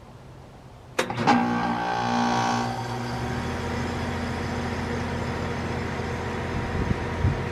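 2019 Goodman heat pump outdoor unit coming out of defrost: about a second in, a sudden click and a loud rush of refrigerant that lasts under two seconds, then the unit settles into a steady running hum.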